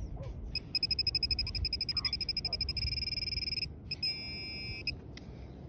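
Handheld XP MI-4 metal detecting pinpointer beeping rapidly, about a dozen beeps a second, running into a steady tone about three seconds in, then a shorter steady tone a second later: it is signalling a metal target close to its tip in the wet sand.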